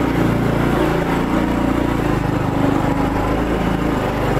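Small geared motorbike engine running under load as it climbs a steep slope, a steady low engine note.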